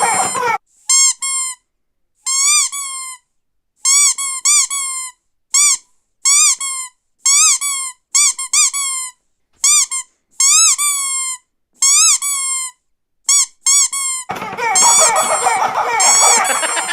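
Rubber squeaky dog toy squeezed again and again: short high squeaks, often two in quick succession, each bending up and then down in pitch, with brief silences between. From about fourteen seconds in the squeezing becomes a continuous rapid run of squeaks over a rough, noisy rumble.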